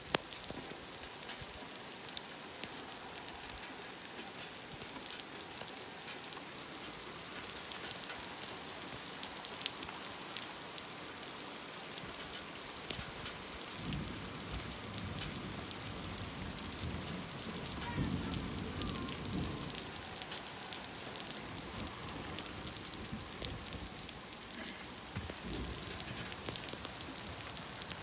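Steady rain falling, a constant hiss with many separate drops ticking on surfaces. A low rumble comes in about halfway and lasts several seconds.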